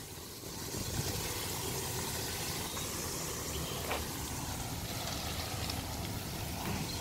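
Dodge Ram pickup truck's engine running at low speed as the truck pulls forward and turns, with the hiss of its tyres on wet pavement.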